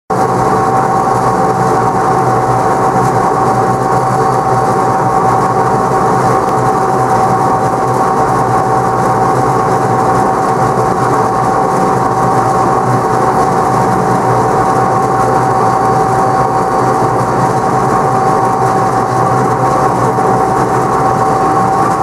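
Wakely 1240 Mobile roller mill running steadily as it crimps maize, driven through a PTO shaft. It makes a loud, constant mechanical drone with a steady high whine over it.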